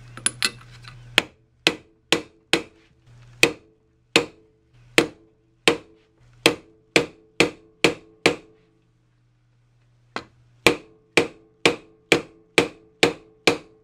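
Sharp metallic taps, about two a second with a pause of about two seconds partway through, each ringing briefly. A hammer is striking a short steel tube used as a driver, seating the heat-expanded bearing in the Makita 2020 jointer's end casting onto the shaft of a Byrd Shelix helical cutter head.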